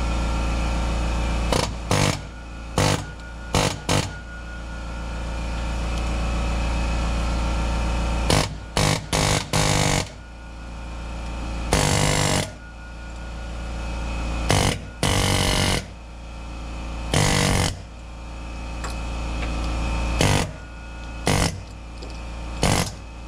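Ingersoll Rand pneumatic air hammer firing in about a dozen short bursts of rapid hammering, some a split second and the longest about a second and a half, driving the old bushing out of a Mazda Miata's differential mount.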